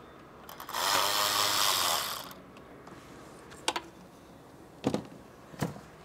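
Electric ratchet whirring for about a second and a half as it spins out a bolt, then three short sharp clicks of metal on metal.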